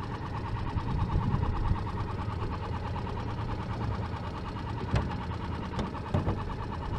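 A small motor running steadily with a fast, even pulse. A few short knocks come about five and six seconds in.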